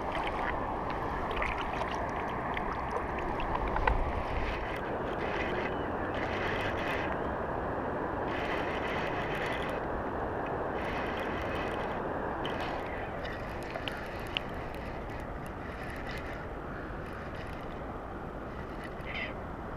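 Wind buffeting an action camera's microphone: a steady rushing noise, with a fainter higher hiss that comes and goes several times.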